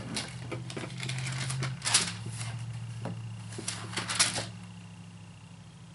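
Bible pages rustling and flipping: several brief papery swishes while a verse is searched for, the strongest about 2 s and 4 s in, over a low steady hum.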